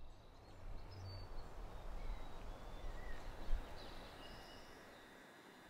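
Outdoor ambience: scattered faint bird chirps and short whistles over a low, uneven rumble, with one louder bump about three and a half seconds in.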